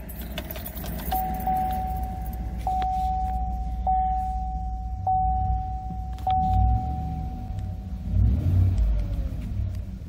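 Chevy Silverado 5.3-litre V8 running on its stock single exhaust, a low steady rumble heard from inside the cab. Over it a dashboard warning chime dings steadily about once every 1.2 seconds for several seconds. The engine note swells twice in the second half.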